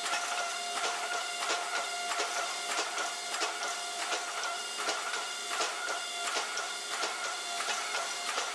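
Hydraulic forging press running with a steady whine, squeezing a hot wrought-iron billet between its dies, with frequent sharp clicks over the whine.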